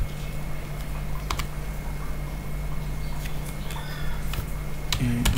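Typing on a computer keyboard: a few scattered key clicks over a steady low hum.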